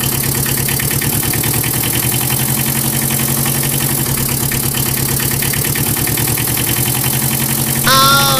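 Vehicle engine idling steadily, an even, fast-pulsing rumble. Near the end a high-pitched voice cuts in over it.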